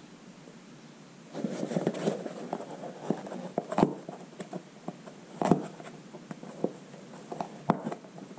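Handling noise on a workbench: rustling with scattered sharp clicks and taps, starting about a second and a half in. The loudest taps come three times.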